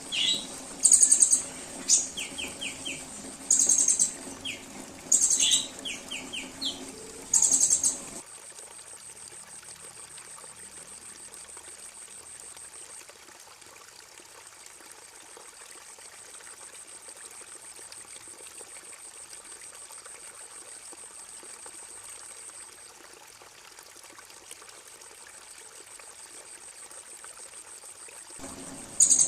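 Songbird song: loud, very high, rapid trilled phrases repeated about every second and a half, with short falling chirps between them. After about eight seconds they stop, leaving a faint, steady, high-pitched pulsing buzz like a cricket for about twenty seconds, and the trills return near the end.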